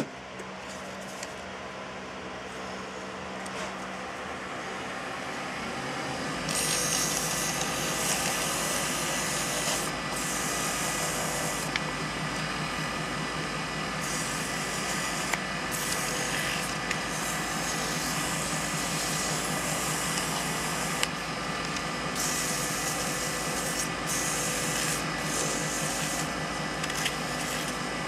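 Wood lathe running with a pine pen blank spinning. About six seconds in, something is pressed against the turning wood, adding a louder rough hissing rub that comes in long stretches with brief breaks.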